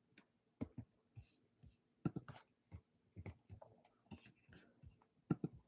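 Faint, irregular clicks, several in quick pairs, with soft rustles between them: a computer mouse and hands moving about a desk.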